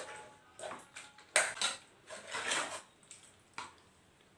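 Metal utensil knocking and scraping inside a pressure cooker pot, mashing soft boiled carrots: several sharp knocks with scrapes between them.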